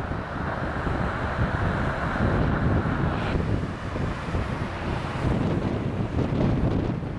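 Strong wind buffeting the microphone over the rushing noise of a jet airliner's engines as the Airbus A319 lands; the higher rush eases about three seconds in.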